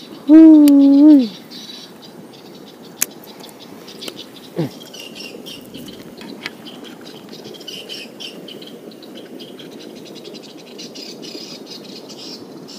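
A single loud hoot lasting about a second, one pitch that wavers slightly before falling away, over a faint steady high-pitched hiss. A much shorter, falling call follows a few seconds later.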